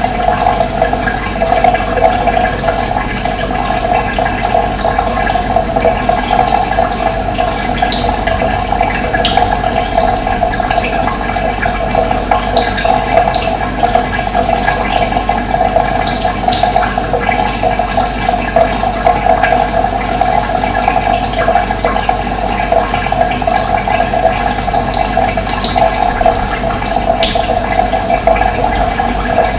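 Steady rush of running water, with scattered short, high bird chirps over it.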